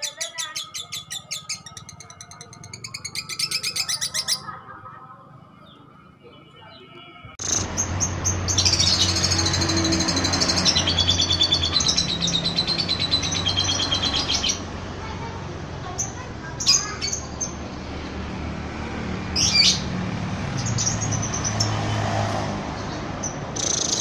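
Lovebird calling: a fast, even chattering trill (the 'ngekek' prized by Indonesian keepers), then after a short lull a stretch of busy high chirping over a noisy background with a low hum, thinning to scattered short chirps.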